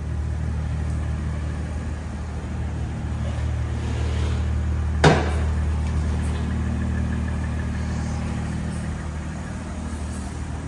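BMW M340i's turbocharged straight-six idling steadily on its stock catback exhaust, a low even hum. A single sharp knock sounds about halfway through.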